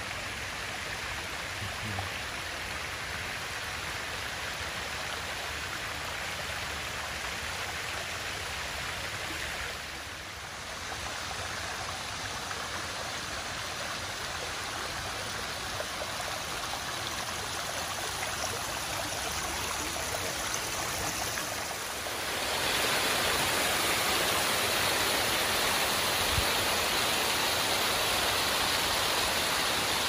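Small waterfall and creek running over rock ledges: a steady rush of water, louder and brighter for the last third.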